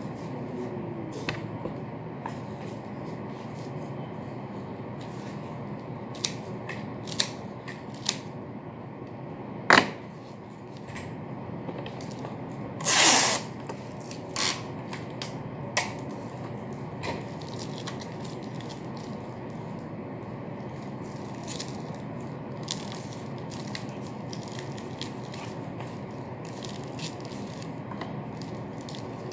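Light clicks and taps of a box and craft materials being handled on a counter, over a steady background hum. There is a sharp click about ten seconds in and a short hiss about thirteen seconds in.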